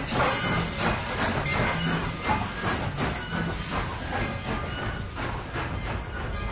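Steam locomotive chuffing: regular puffs of steam, about two or three a second, over a steady hiss.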